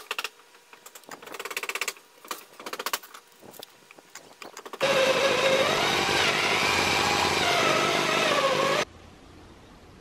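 Electric drill with a hole saw boring through a wooden beam for about four seconds. Its motor pitch wavers up and down as the cutter bites, then it cuts off abruptly. Before it come a few scattered light clicks and knocks.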